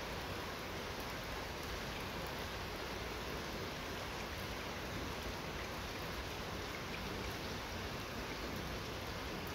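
Rain falling steadily: an even hiss with no breaks.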